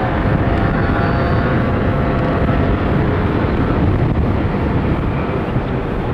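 Steady rush of air over the microphone of a hang glider in flight, with faint thin whistling tones running through it.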